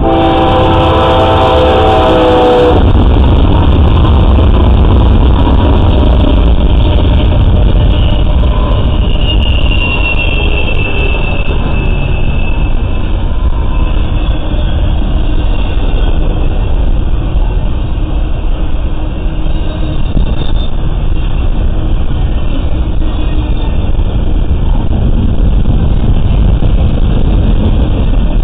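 GE Dash 9 diesel freight locomotives passing close: a multi-chime train horn sounds for about the first three seconds and stops, then the locomotives' engines and wheels make a loud, steady rumble that lasts to the end.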